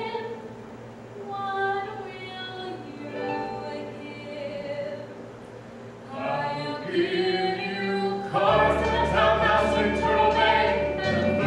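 A woman singing a Broadway show ballad live on stage, with accompaniment. About eight and a half seconds in, the music swells and a steady low bass note comes in underneath.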